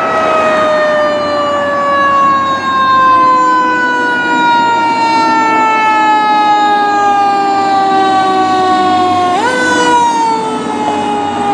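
Fire engine siren wailing. Its pitch falls slowly for about nine seconds, then is swept sharply back up near the end and begins to fall again.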